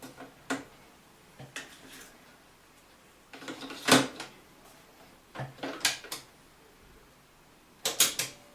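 A series of irregular, sharp clicks and knocks, loudest about four seconds in, with quiet gaps between them.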